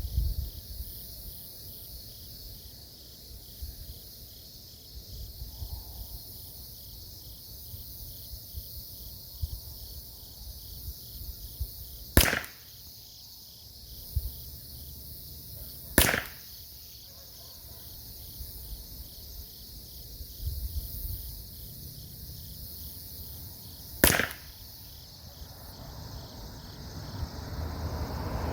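Three single shots from a Ruger 10/22 .22 rimfire rifle, a sharp crack each, the second about four seconds after the first and the third about eight seconds later: a warm-up group with SK Rifle Match ammunition. A faint steady high hiss lies underneath.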